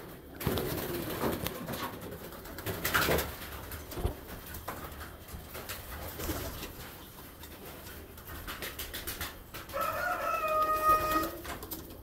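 Domestic pigeons cooing, with rustling throughout; a brief, loud sound with a steady high pitch comes about ten seconds in.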